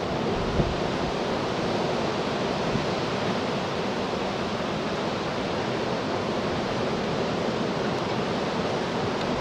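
Steady roar of a Boeing 737-800's CFM56-7B jet engines as the airliner touches down and rolls out on the runway, with a faint steady hum under the roar.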